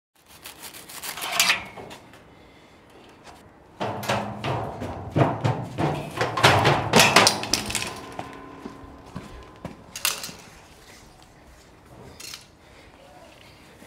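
Hurried footsteps clanging down a steel staircase: a quick run of heavy steps lasting about four seconds, after a brief noise about a second in and followed by a couple of isolated knocks.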